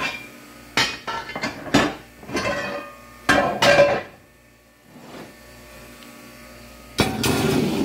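Stainless steel clattering: a collapsible steamer basket handled on a tile floor, its metal leaves clinking and ringing in a few quick knocks and rattles, then a longer, louder clatter near the end.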